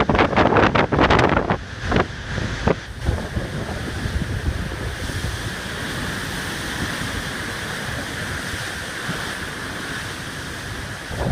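Stormy wind buffeting the microphone in loud gusts for the first few seconds, then settling into a steady rush of wind and rough sea.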